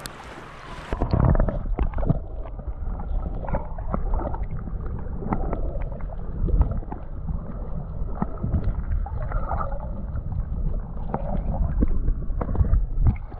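Muffled underwater sound of a camera held under shallow sea water: a low rumble of moving water against it, with many small clicks and knocks. It turns muffled about a second in as the camera goes under.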